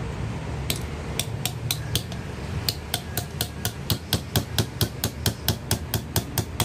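Rapid metal-on-metal tapping as a small metal tool is knocked against the shaft fitting of an angle grinder's motor: sharp taps starting about a second in, a short pause, then a quicker run of about five a second. A steady low hum underneath.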